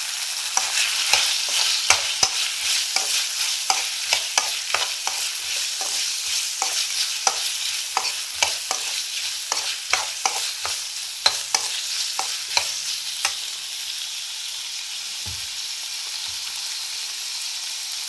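Chopped onion, green bell pepper and mushrooms sizzling in hot oil in a wok over high heat, with a metal spoon clinking and scraping against the pan as they are stir-fried. The clinking stops about two-thirds of the way through while the steady sizzle goes on.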